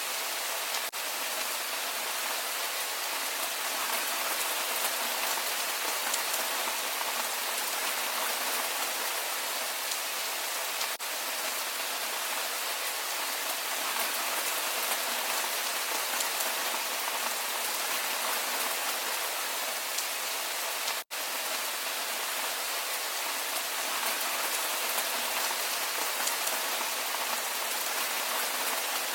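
Steady rain falling, an even hiss of many drops with no let-up, broken only by a split-second gap about two-thirds of the way through.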